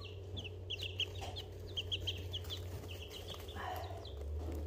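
Young chicks, about two and a half weeks old, peeping in quick runs of short high chirps.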